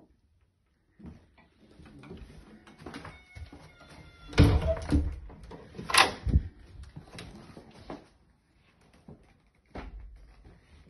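Interior door being opened and handled: a faint creak, then two loud knocks about a second and a half apart around the middle.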